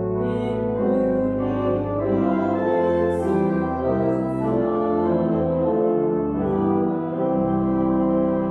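Church organ playing sustained hymn chords, with voices singing along.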